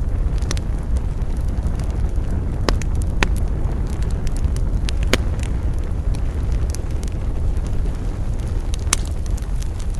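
Campfire crackling, with sharp pops and snaps of burning wood at irregular intervals, four of them loud, over a steady low rumble.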